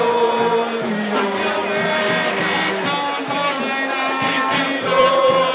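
Music with singing: a voice holding long sung notes over dense accompaniment.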